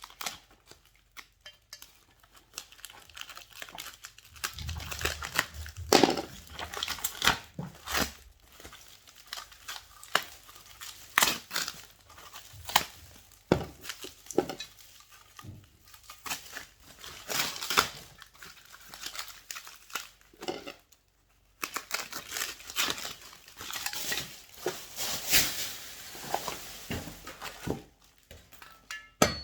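Handling of packaging and metal parts: plastic and paper wrapping crinkling and tearing, with irregular clinks and knocks of metal plucker parts and hardware being unpacked and set down.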